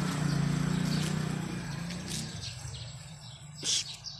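A passing motor vehicle's engine drones and fades away over the first two seconds or so. A short high-pitched chirp-like sound comes near the end.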